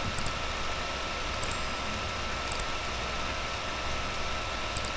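Computer mouse clicking four times, each click a quick double tick, over a steady hiss and low hum.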